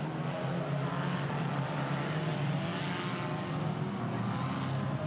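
Engines of a pack of banger racing cars running together in a steady drone, with engine notes rising and falling as the cars rev.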